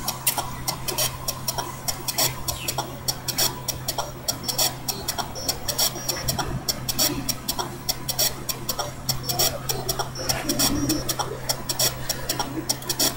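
Continuous irregular crackling clicks over a steady low hum.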